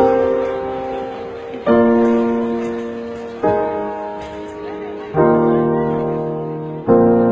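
Film-score piano music: slow chords struck about every second and a half to two seconds, each left to ring and fade before the next.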